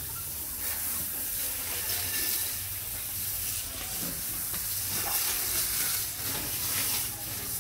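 Water from a garden hose spraying onto a wet concrete floor, a steady hiss.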